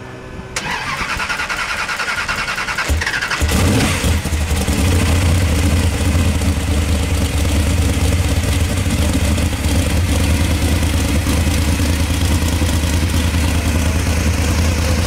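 The supercharged engine of a 1941 Willys gasser cranks on the starter for about three seconds, then fires and settles into a loud, steady idle.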